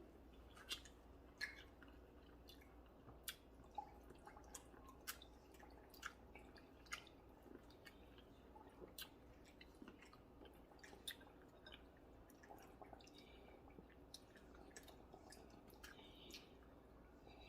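Faint, close-up eating sounds: wet chewing and mouth clicks, with irregular sharp little ticks every half second or so.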